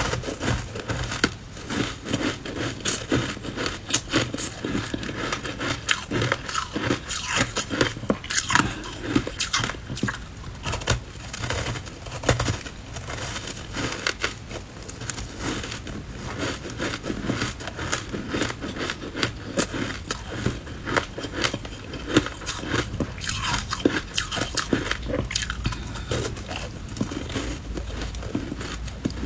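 Blocks of ice coated in matcha powder being bitten and chewed: a steady run of sharp crunching and cracking of ice.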